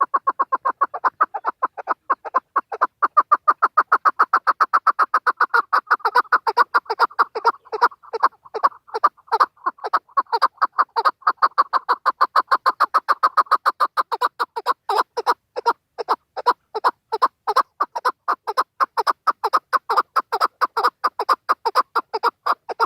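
Chukar partridge calling: a long run of short, rapid chuck notes, about five a second, kept up steadily.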